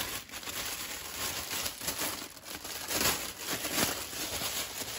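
Thin clear plastic bag crinkling in irregular rustles as it is handled and pulled off a cordless impact driver.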